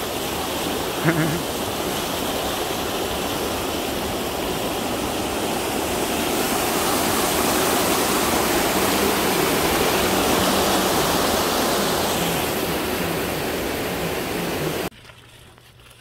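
Rushing river water: a steady, loud rush that cuts off suddenly near the end.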